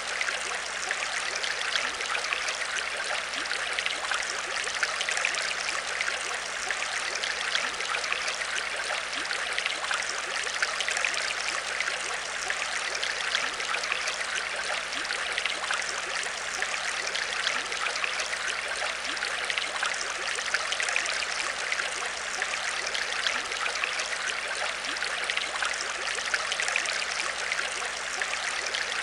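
Aquarium water trickling and bubbling steadily, full of fine crackling splashes, over a faint steady low hum.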